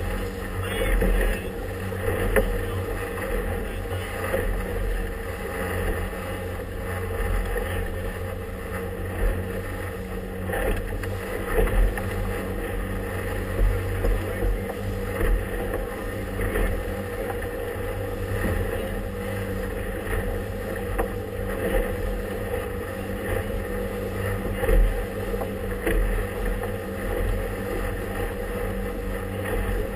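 Motorboat under way: the engine runs steadily while the hull slaps through choppy water, with short irregular splashes and knocks over the drone.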